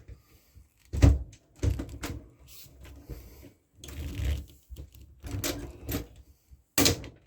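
Hand-tool work fixing a small metal fastener in place: a series of sharp clicks and knocks, some with a short rasp after them, spaced irregularly.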